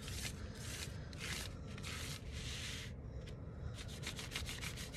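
Large paintbrush scrubbing black watercolour paint into crumpled, crayon-waxed paper: a run of brushing strokes, longer at first, then quick short strokes from a little under four seconds in.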